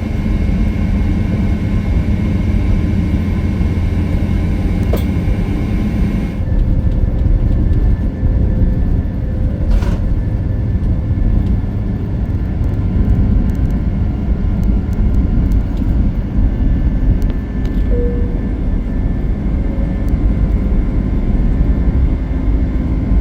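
Steady low rumble of a running vehicle, with the higher hiss dropping away about six seconds in.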